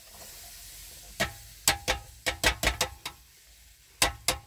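A quick, irregular run of about eight sharp knocks starting about a second in, a short pause, then two more knocks near the end.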